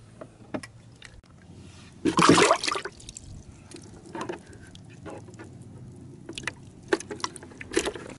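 Water splashing in a bucket as a hand and a pumpkinseed sunfish move in it: one loud splash about two seconds in, then small splashes and drips.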